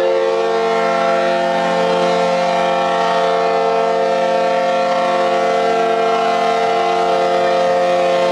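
Cruise ship's horn sounding one long, steady blast of several tones at once, the signal that the ship is leaving port.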